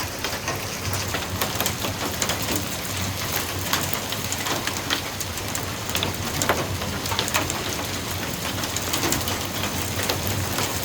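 Heavy hailstorm: a dense, steady clatter of hailstones hitting a roof, with many sharp ice impacts over a rain-like hiss.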